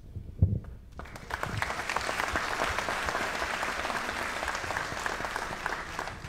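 Audience applauding, starting about a second in and fading near the end, after one brief thump.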